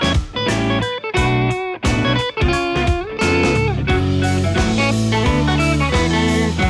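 Background music led by guitar, with choppy stop-start chords that settle into a steady groove about three seconds in.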